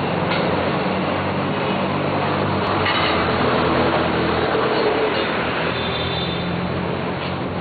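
A vehicle engine running steadily amid street traffic noise.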